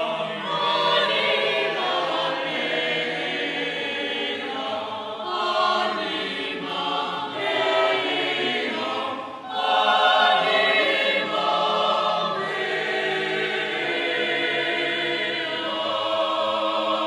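Choir singing sacred music in sustained chords, with a brief pause about nine seconds in before a louder phrase.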